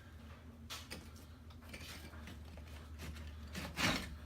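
Faint clinks and knocks of loose bricks and broken mortar rubble, over a steady low hum, with a louder scrape near the end. The demolition hammer is not running.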